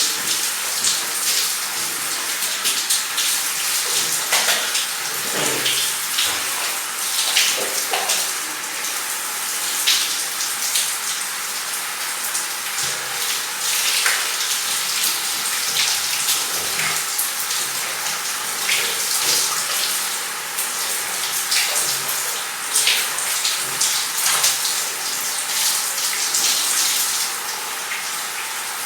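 Water running and splashing steadily: a continuous hiss full of small splashes.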